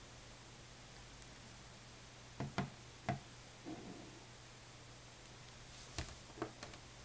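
A few short clicks and knocks as structures of small neodymium magnet balls are handled and set down on a wooden tabletop: three in quick succession near the middle, a soft scuff, then a few more near the end, over a faint steady low hum.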